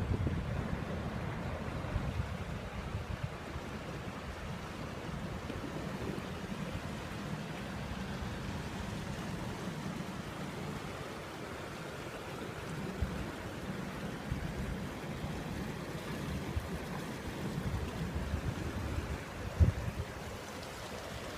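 Wind rumbling on the microphone over a steady wash of river water, with one sharp thump near the end.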